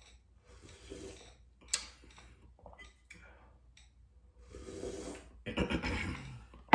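Close-up eating sounds while drinking soup: soft mouth clicks and one sharp click, then a louder stretch of slurping and breathing over the last two seconds.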